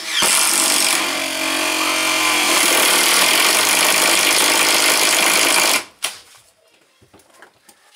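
Makita brushless cordless drill boring through a wooden stud. It starts with a steady motor tone, then after about two and a half seconds becomes a rougher cutting noise as the bit bites into the wood, and stops suddenly about six seconds in.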